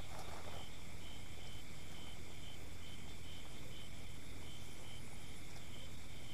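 Night insects, crickets, chirping: a short high chirp repeating about twice a second over a steady insect drone, with a low rumble underneath.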